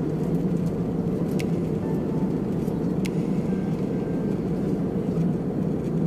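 Steady cabin noise of an airliner in flight: the low, even rush of engines and airflow heard from inside the cabin, with two faint clicks.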